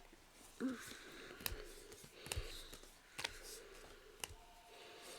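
Faint handling of Weiss Schwarz trading cards on a table: soft rustling with a handful of light clicks and taps spread through it.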